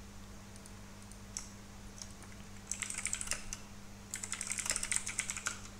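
Typing on a computer keyboard: a few scattered clicks, then two quick runs of keystrokes about three and four seconds in.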